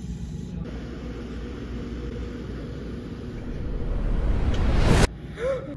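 A steady rumbling, rushing noise that swells loudly over about a second and a half, then cuts off abruptly about five seconds in. A brief sliding tone follows.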